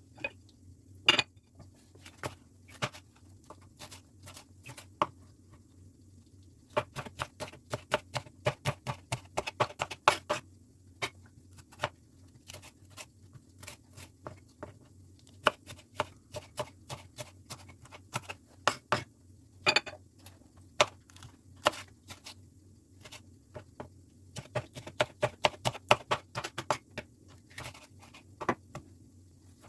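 Kitchen knife chopping food on a cutting board, in runs of quick strokes a few seconds long with single knocks in between.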